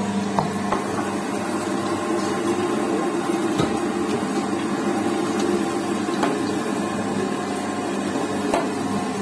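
Electric meat grinder running with a steady hum while it minces meat, the ground meat being pushed out through the cutting plate.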